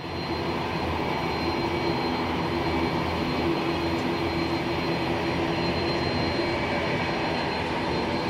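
Airbus A330-300's jet engines running at taxi power: a steady rushing noise with a thin high whine and a low hum over it.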